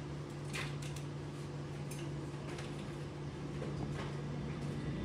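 A steady low hum, with a few sharp clicks and creaks scattered through it, the first about half a second in.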